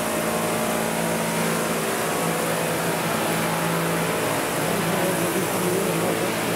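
Twin-rotor RC scale model Chinook helicopters flying at close range, a steady drone of rotor blades and drive with a constant pitched whine that shifts slightly about four seconds in.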